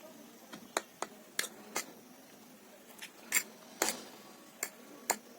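Close-up eating sounds: a string of sharp, irregular clicks and smacks, several in a few seconds, from mouth and utensils.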